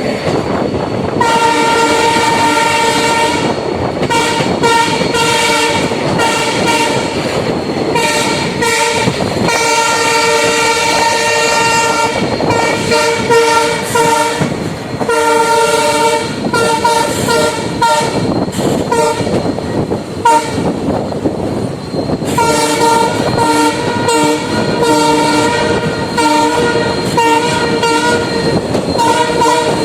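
WDP-4 diesel locomotive's horn honking over and over in blasts of varying length, over the running noise of the moving train. The horn thins out briefly about two-thirds of the way through, then resumes.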